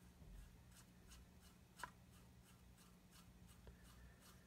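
Near silence: a damp paintbrush scratching faintly in repeated short downward strokes over the plastic hull of a scale model tank, with one small click a little under two seconds in and a steady low hum underneath.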